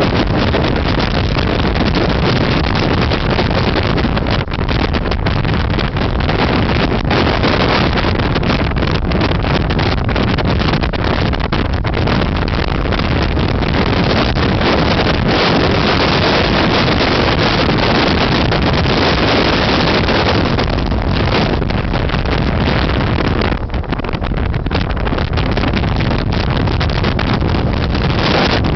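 Strong wind blowing across the microphone: loud, continuous wind noise with a heavy low rumble, easing briefly near the end.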